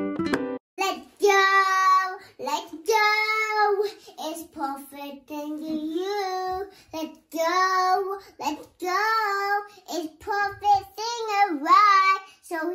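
A young child singing alone without accompaniment, in a high voice, with phrases of held and sliding notes separated by short breaks. A plucked-string tune cuts off just as the singing begins.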